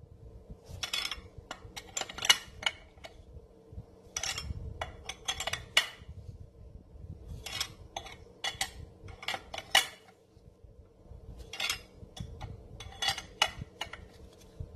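Sharp metallic clicks and clinks in irregular clusters: a steel factory tool rattling and tapping against the finned cylinder and head bolts of a STIHL FS280 two-stroke engine as the cylinder head bolts are snugged down.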